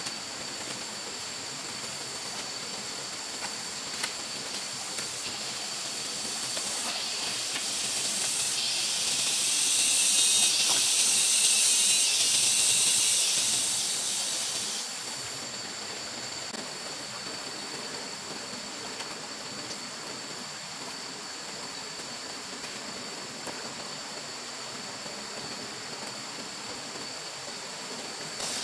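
Water running and trickling down a freshly dug earth ditch, heard as a steady hiss. A louder high hiss swells for several seconds in the middle, and a thin, steady high-pitched whine runs underneath.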